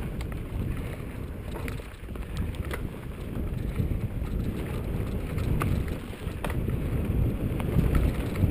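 Wind buffeting the microphone of a mountain bike descending a dirt singletrack, over a steady rumble of the tyres on the trail, with scattered sharp clicks and rattles from the bike; it gets louder near the end.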